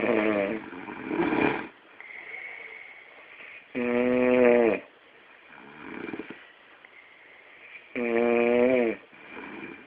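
A sleeping person snoring: three loud, pitched snores about four seconds apart, each about a second long, with softer, rougher snores between them.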